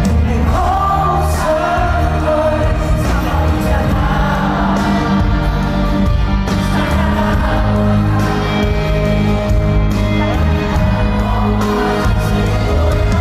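Live pop band playing on a concert stage with singing over it, recorded from the audience.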